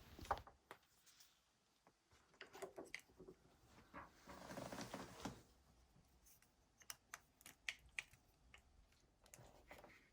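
Near silence, with a few faint scattered clicks and one brief soft rustle near the middle.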